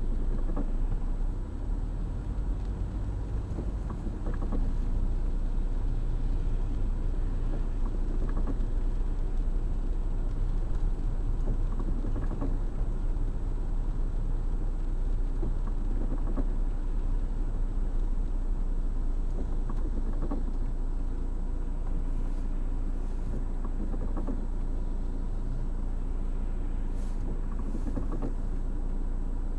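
Car driving in stop-and-go traffic on a wet road, heard from inside the cabin: steady engine and tyre rumble, with a windscreen wiper sweep about every four seconds. The car slows to a standstill near the end and the rumble eases a little.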